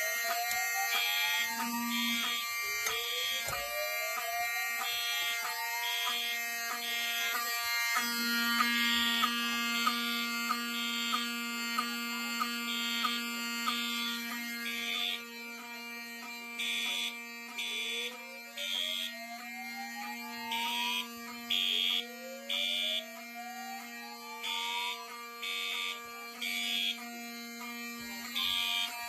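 Fire alarm notification appliances sounding on a pull-station alarm: a Cerberus Pyrotronics MTL-S17F multi-tone set to code-3 horn and a Wheelock 7002 set to continuous. High-pitched horn pulses go in the temporal code-3 pattern (three beeps, then a pause) over a steady continuous tone, with a rising whoop sweep twice near the start and twice later. The alarm drops in level about halfway through.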